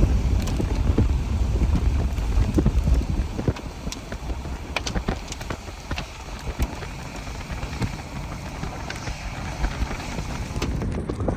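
Wind buffeting the microphone, easing off about three seconds in, with scattered sharp ticks and taps throughout.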